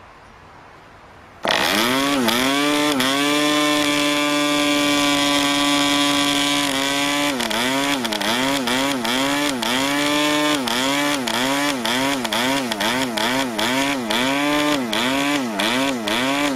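PAW 40 model-aircraft diesel engine with a two-blade 12x5 propeller, flick-started on a break-in run: it catches suddenly about a second and a half in, rises in pitch and settles into a steady high-pitched run. From about seven seconds in its speed surges up and down about every two-thirds of a second, while the compression and needle are being adjusted.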